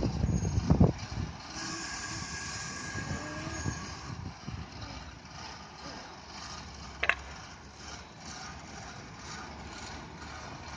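A heavy vehicle or machine engine running steadily, with a few loud thumps in the first second and a brief high squeal about seven seconds in.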